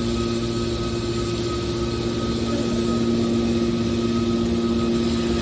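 Hydraulic metal baler running with a steady mechanical hum, its motor and pump holding an even pitch.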